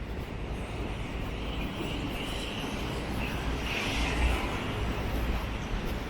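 Storm wind buffeting the microphone, a heavy gusting rumble with a steady rushing noise over it.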